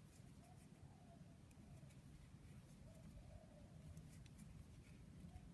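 Near silence: room tone with a few faint ticks from a steel crochet hook and yarn being handled.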